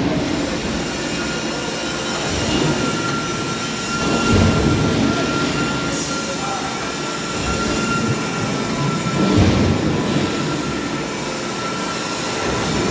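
Metalworking lathe running: a steady mechanical rumble with a thin high whine, swelling louder now and then.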